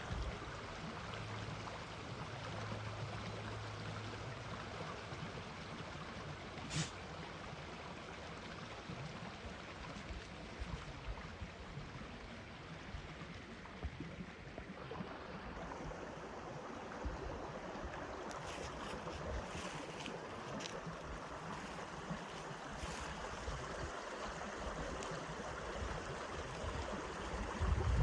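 Steady rushing of flowing water, like a stream, with a sharp click about seven seconds in and a short louder sound right at the end.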